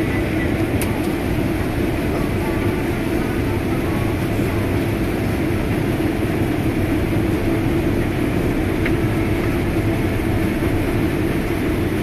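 Combine harvester running at harvest: a steady, loud engine-and-machinery drone with no breaks, heard from inside the cab.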